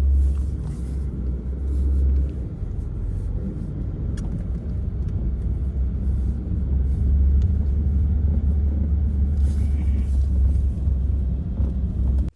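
Blizzard wind buffeting the microphone: a loud, steady low rumble that cuts off suddenly at the end.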